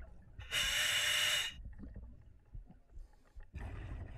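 Scuba diver breathing through a full face mask regulator: one loud hiss of air through the demand valve lasting about a second, then quieter bubbling of exhaled air near the end.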